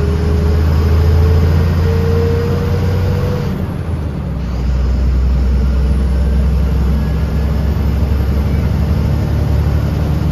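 Bus's diesel engine heard from the driver's cab, pulling under load with a whine rising gently in pitch. About three and a half seconds in, the sound drops away briefly as a gear is changed, then the engine pulls on steadily.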